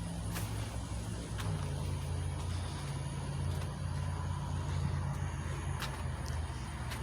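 A steady low engine hum whose pitch shifts slightly about a second and a half in, with a few faint clicks.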